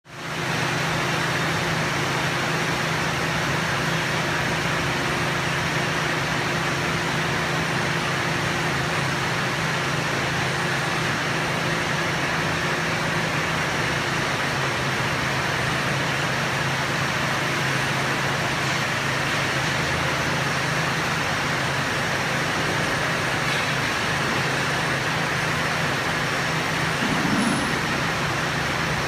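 Steady hum and hiss of industrial machinery running, with a low drone throughout and a higher hum that drops out about halfway. A brief, slightly louder sound comes near the end.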